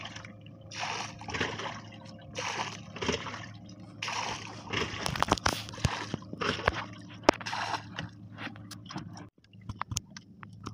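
Water splashing and sloshing against a small wooden outrigger boat in choppy water, in repeated bursts with scattered sharp clicks and knocks. It cuts off abruptly about nine seconds in, leaving only a few clicks.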